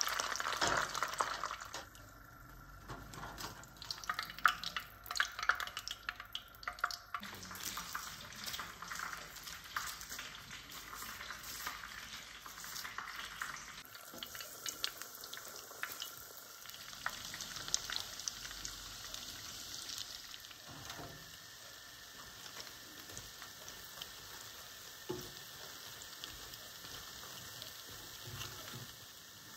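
Panko-coated bread dough deep-frying in hot oil: a steady sizzle full of fine crackles. A few sharper knocks come in the first several seconds as pieces are handled with tongs.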